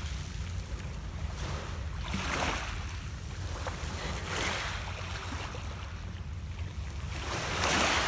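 Small lake waves washing onto a pebble shore, three swells of wash about two seconds apart, over a steady low rumble.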